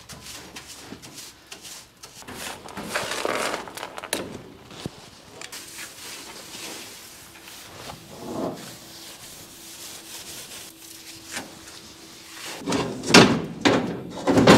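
A whisk broom scratches and sweeps crusty plasma dross across a sheet-metal water-table tray. Near the end, loud clunks and clatter as the steel slat set is lowered back into the table.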